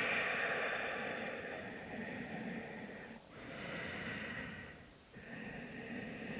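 A woman's slow breathing while holding a yoga stretch, in long breaths with brief pauses about three and five seconds in.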